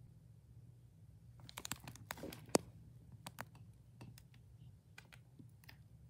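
A quick run of light clicks and taps about a second and a half in, the sharpest near the middle, followed by a few scattered single clicks, over a low steady hum.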